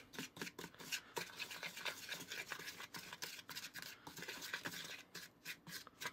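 Plastic spatula stirring and scraping dry, crumbly cookie dough mix around a plastic bowl: a fast, irregular run of soft scratchy scrapes and small clicks. The mix is still crumbly because it has very little water in it.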